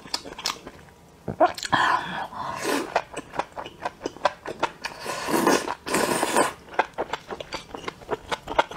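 A person slurping and chewing sauced enoki mushrooms up close: many quick wet clicks of chewing, broken by several sucking slurps, the longest from about five to six and a half seconds in.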